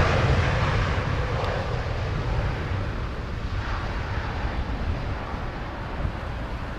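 Boeing 787 Dreamliner's GEnx jet engines at takeoff thrust: a steady low rumble with a hiss on top, slowly fading as the aircraft rolls away down the runway and lifts off.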